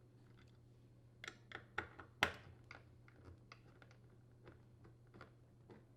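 Faint scattered clicks and light taps of a hand driver and screws being worked loose from a dishwasher's door hinge on the inner door panel, the sharpest click a little past two seconds in.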